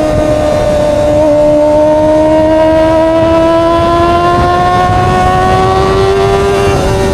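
Kawasaki ZX-25R's 249 cc inline-four engine running at high revs under way, its pitch climbing slowly as the bike accelerates, with a brief dip near the end like a gear change.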